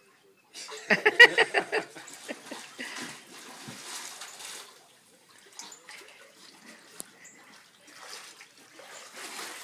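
Splashing water in a backyard swimming pool as children play, with a loud, wavering cry from a child's voice about a second in.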